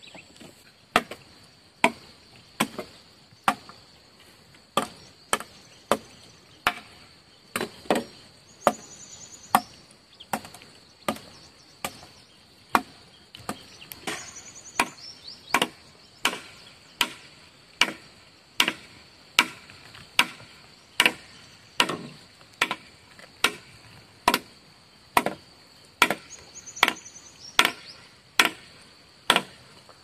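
Repeated chopping strikes, evenly paced a little faster than one a second, over a steady high insect drone with a few short bird chirps.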